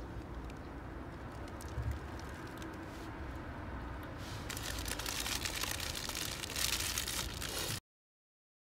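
Paper napkin crinkling and rustling around a hand-held pastry, louder over the last few seconds, over a steady low background rumble. The sound cuts off abruptly near the end.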